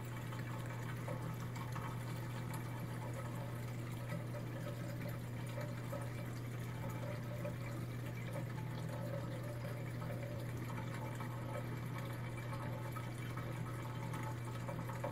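Saltwater aquarium running: a steady low hum from its pump with water trickling and bubbling through the tank.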